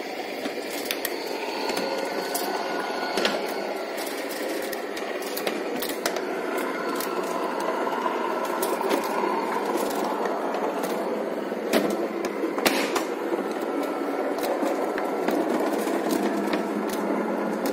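Electric tubular motor of an exterior aluminium roller shutter running steadily as it winds the shutter up, with scattered clicks from the moving slats. The shutter is rolling up freely and evenly now that its seized end brackets work again.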